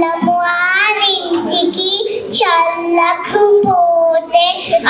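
A young child singing a song into a microphone, holding notes and sliding between them.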